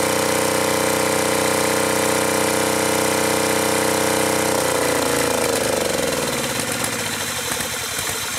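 Acme ADX 740 two-cylinder diesel engine running flat out at a steady speed, then about four and a half seconds in it slows, its pitch falling as it winds down toward a stop. It is stuck at full throttle and running rough, rich and smoky; the owner thinks the throttle linkage to the injector pumps has come disconnected.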